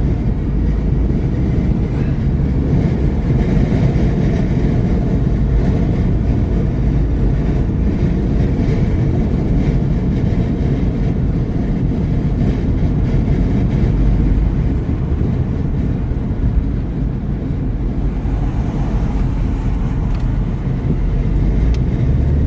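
Steady road and engine noise of a car cruising at freeway speed, heard from inside the cabin, with a deep, even rumble and slight swells in loudness.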